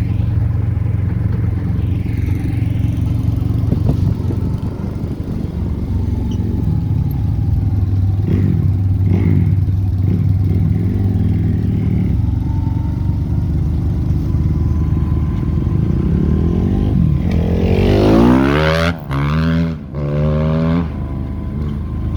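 Motor vehicle engine running steadily while driving, heard from inside the cab. Near the end the engine pitch sweeps down and back up as it slows and changes gear.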